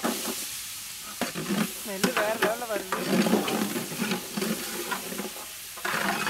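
Shallots and garlic hitting hot oil in a large metal pot and sizzling. The sizzle comes up suddenly at the start, and a metal ladle scrapes and clicks against the pot as they are stirred. This is the tempering stage of a curry.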